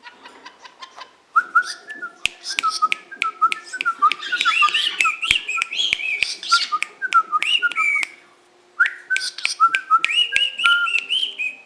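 Pet birds chirping and whistling in quick, rapid notes, mixed with many sharp clicks. The calls come in two runs, with a break of about a second about eight seconds in.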